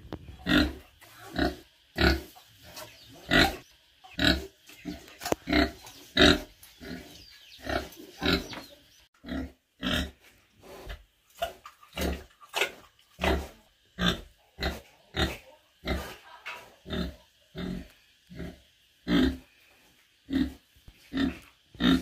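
Pig grunting over and over in short separate grunts, about one and a half a second.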